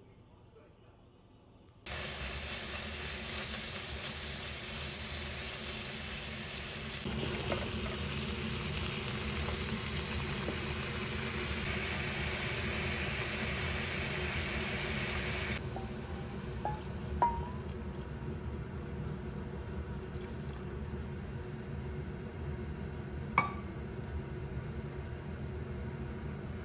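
Kitchen sounds: a steady rushing hiss that starts suddenly about two seconds in, then changes abruptly to a quieter hiss with two sharp clinks.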